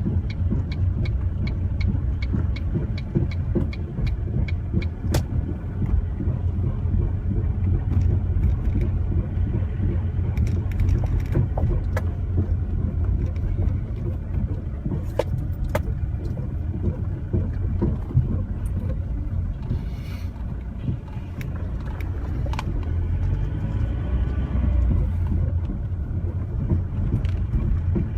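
A 2005 Ford Mondeo ST TDCi on the move, giving a steady low road and engine rumble with sharp knocks on top of it. The knocks come about two or three a second for the first few seconds, then scattered. This is the very loud banging the car makes whenever it moves.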